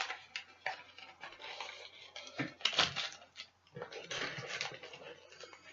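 Hard plastic clicks, clatters and rustling from a plastic puzzle cube being handled. The taps are irregular, with two longer rustling stretches, one about a second in and one near four seconds.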